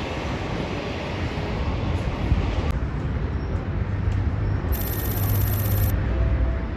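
Jet airliner engine noise, a loud, even rush that cuts off suddenly about three seconds in, giving way to a lower, steadier rumble.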